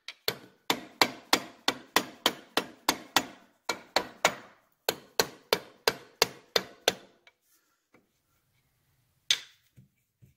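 A soft-faced mallet taps the aluminium cover of a Triumph four-speed gearbox, about three light knocks a second for some seven seconds, driving the cover onto the case. After a pause there is one more knock.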